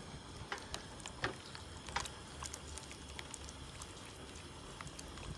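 Thick coconut-milk curry being stirred in a metal wok with a silicone spatula: scattered soft wet clicks and scrapes at irregular intervals over a faint steady background noise.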